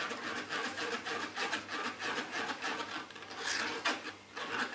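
Spoon scraping around a metal mesh strainer, working fruit juice and pulp through it in quick repeated rubbing strokes, with one sharper scrape about three and a half seconds in.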